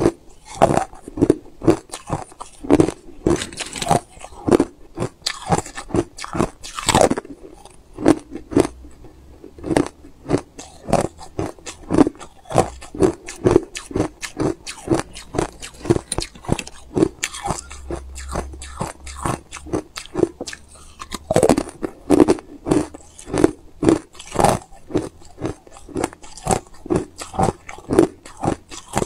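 Hard ice being chewed close to the microphone: a steady run of crisp crunches, about two to three a second, with an occasional sharper, louder crunch as a fresh piece is bitten.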